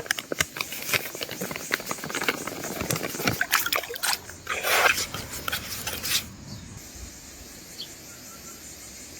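Plastic bait bag crinkling and rustling as fishing bait is opened and prepared by hand, a run of quick crackles that stops about six seconds in, leaving a quiet steady outdoor background.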